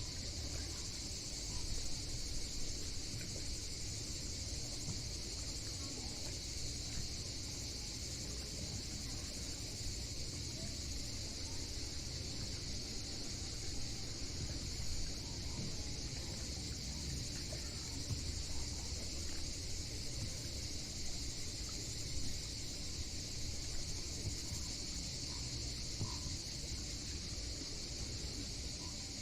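Cicadas chirring in a steady, unbroken chorus, with a low, steady rumble underneath.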